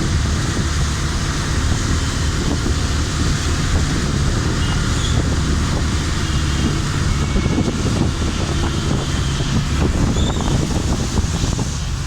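Wind buffeting the microphone, a steady loud low rumble with a few faint high chirps.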